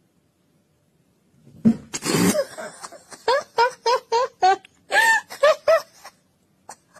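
A person laughing in a run of short, high-pitched bursts, starting with a breathy outburst and going on in quick repeated giggles of about three a second.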